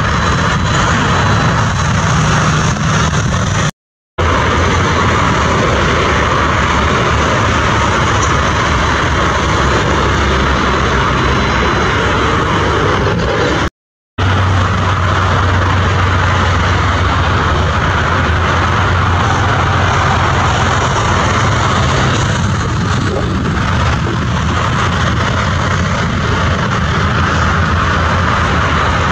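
Twin turbofan engines of a Boeing 767-300 freighter running at taxi power, a steady rumble and hiss with a low hum. The sound cuts out for a moment twice, about four and fourteen seconds in.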